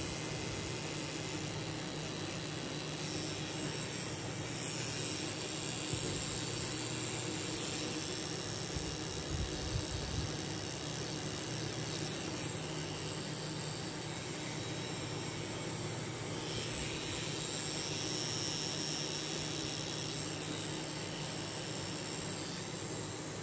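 Tattoo machine running steadily: a constant hum with hiss throughout.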